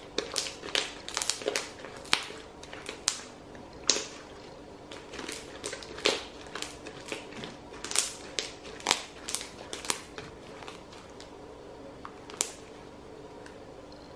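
Thick black slime made with black face mask being squeezed, kneaded and stretched by hand, giving a crispy crackling with irregular clicks and pops. The crackles come thick and fast at first, then thin out to scattered louder pops.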